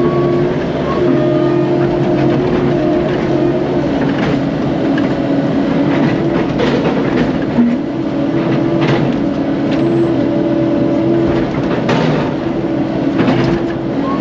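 CAT 308 mini excavator's diesel engine and hydraulics running steadily under load as it works a large tree, with the pitch shifting slightly and several sharp knocks and cracks in the second half.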